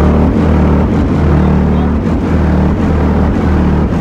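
Car stereo subwoofers playing deep bass at high volume, long low notes held for about a second at a time with short breaks between them.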